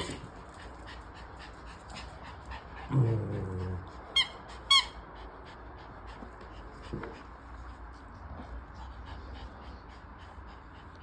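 Pomeranian at play giving two sharp, high-pitched yips about four seconds in, half a second apart, after a brief low vocal sound. Faint light ticks continue throughout.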